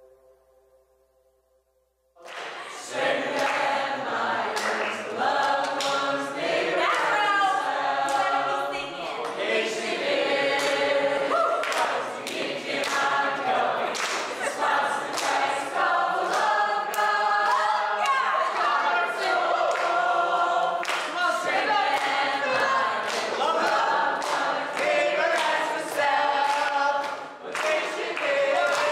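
A group of people singing a jingle together without instruments, starting about two seconds in, with scattered sharp hits through the singing.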